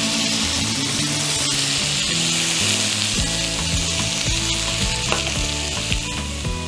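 Cubes of lamb sizzling steadily in hot oil in a frying pan as they are browned, with a few short clicks as metal tongs move the pieces about.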